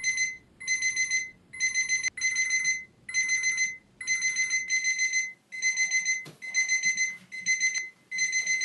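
Dumbbell-shaped alarm clock beeping a high electronic tone in rapid bursts of four to six beeps, about one burst a second. It keeps sounding until 30 reps are lifted.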